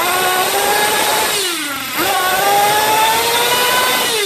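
Small nitro engine of an RC car running fast on a stand while it is being tuned, a high whine. The revs climb slowly, drop away about one and a half seconds in, pick up again around two seconds and climb until they fall off at the very end.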